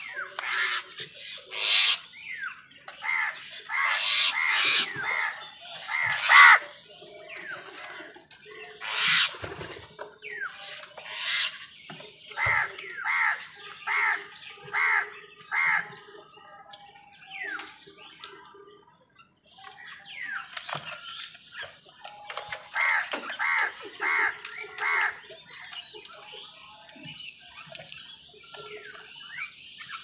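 House crows cawing over food, many harsh caws overlapping, some in evenly spaced runs of five or six at a little under two a second, with a brief lull about two-thirds of the way through.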